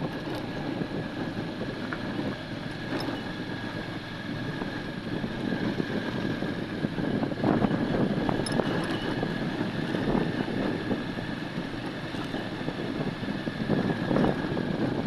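A motor running steadily with a thin high whine, its rumble swelling twice.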